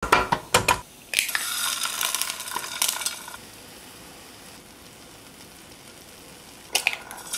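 An egg cracked against the rim of a frying pan with a few sharp taps, then eggs sizzling in the hot pan, loud at first and settling to a soft steady sizzle. Two sharp taps near the end.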